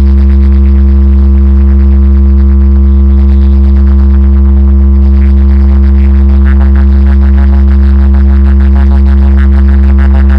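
DJ sound system's bass speakers playing a very loud, unbroken low bass drone with steady higher tones over it, as in a sound-check bass test. A fast fluttering rattle joins in the upper range about six seconds in.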